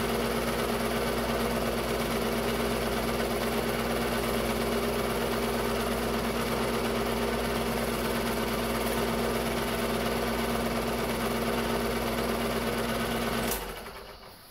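Technicolor 810 8mm film-loop projector running, a steady mechanical whir with a low hum. Near the end it stops with a click and the sound dies away.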